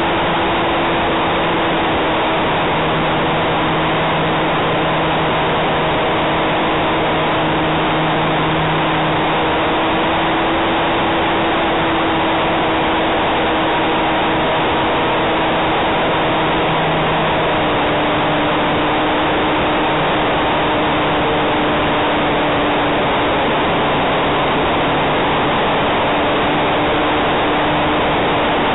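RC model Cessna 400 Corvalis in flight, its motor and propeller heard close up from an onboard mini camera: a steady hum over a dense rush of air noise. The pitch dips slightly about halfway through.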